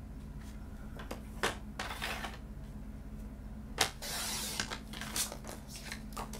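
Stampin' Up paper trimmer cutting cardstock: scattered clicks and taps of the trimmer and paper, then a sharp click and a short swish of the sliding blade running through the cardstock a little past the middle.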